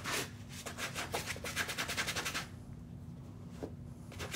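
Brush scrubbing a Vans sneaker in rapid back-and-forth strokes, about eight to ten a second. The scrubbing pauses a little past halfway and starts again at the very end.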